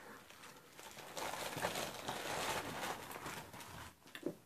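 Brown paper packaging being crumpled and handled: a dense, crackly rustle that builds about a second in and dies away near the end.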